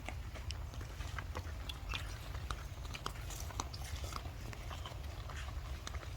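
Irregular small clicks and crunches, like chewing, over a steady low rumble.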